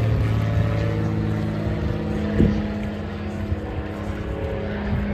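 A motor running steadily with a low, even hum, and a short thump about two and a half seconds in.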